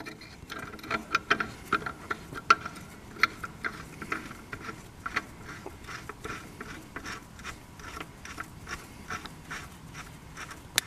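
Hydraulic screen plug being threaded back into the tractor's housing by hand: faint, irregular small clicks and rubbing of fingers and metal threads, several a second.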